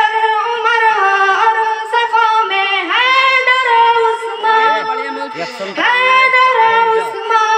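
A high voice sings a tarana, an Urdu devotional song, in long held notes with a wavering pitch and no instruments. A fainter, lower voice comes in under it a little past the middle.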